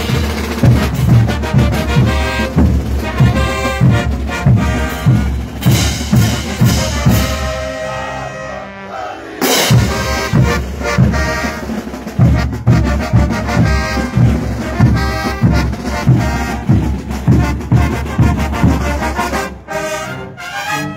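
Bolivian brass band playing a morenada: brass over a steady beat of bass drums, snare drums and crashing hand cymbals. The music thins and briefly breaks off about nine seconds in, then the full band comes back in.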